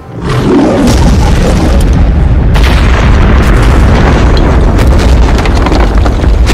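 Film sound effect of a heavy impact: a boom that swells within the first second into a long, loud rumble, with crackling running through it.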